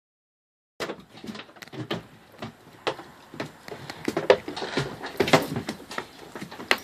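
Irregular knocks, thumps and scrapes of a dog's booted paws scrambling across a fibreglass boat deck and climbing out onto a wooden dock, starting about a second in.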